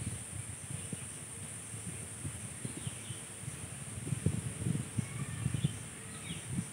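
Outdoor ambience: a steady high insect drone with a few short bird chirps over it, and uneven low buffeting from wind on the microphone, briefly stronger about four to five seconds in.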